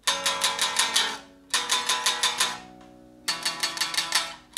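Electric guitar playing three short phrases of unconventional chords, each a quick run of repeated picked strokes lasting about a second, with the notes ringing on quietly between phrases.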